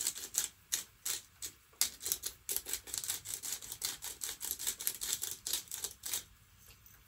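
Hand pepper mill being twisted, grinding black peppercorns with a rapid, uneven run of crackling clicks that stops near the end.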